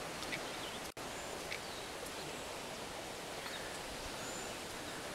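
Steady outdoor background hiss of a wet rural yard, with a few faint high bird chirps. The sound cuts out for an instant about a second in.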